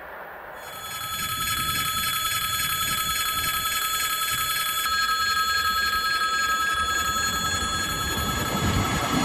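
Railway level-crossing warning bell ringing in a rapid, even rhythm. A low rumble builds under it near the end.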